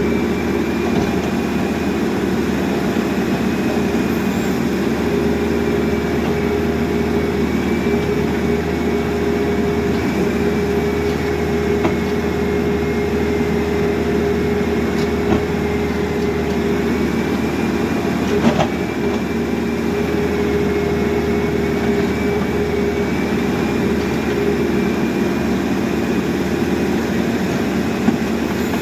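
Caterpillar backhoe loader's diesel engine running steadily under work, with a thin whine that wavers slightly in pitch and a few short knocks, one about 15 seconds in and a louder one about 18 seconds in.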